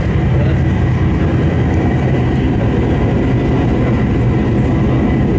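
Inside a moving diesel railcar: steady low rumble of the diesel engine and running gear on the track, with a thin, steady high whine above it.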